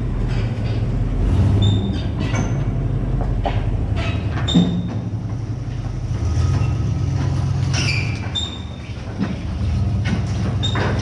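Combine harvester running in a soybean field: a steady low engine rumble with scattered clanks and rattles from the machine.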